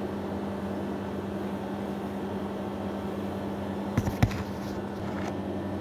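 A whiteboard being wiped with a duster, with two sharp knocks against the board about four seconds in and a few lighter scrapes after. Underneath runs a steady machine hum with a constant low tone.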